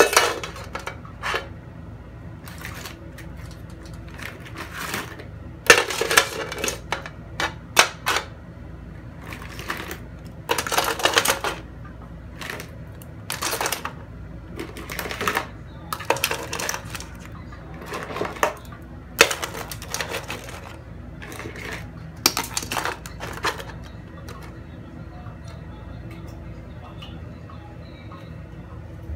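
Raw blue swimmer crabs being put one after another into a nonstick pot, their hard shells clattering and scraping against the pan and each other in short irregular bursts. The clatter stops a few seconds before the end, leaving a steady low hum.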